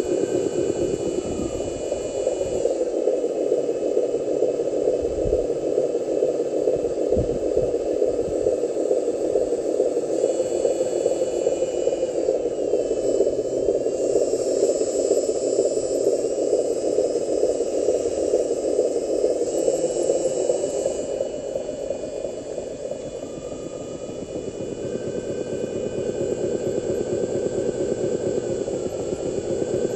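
Radio-controlled dump truck running over dirt: a steady, rough drone with a high motor-and-gear whine on top. The whine shifts up and down in pitch several times as the throttle changes, and the sound drops back for a few seconds a little past the middle.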